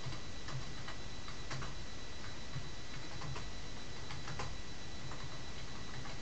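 Computer keyboard being typed on: irregular key clicks, several a second, over a steady hiss with a faint high whine.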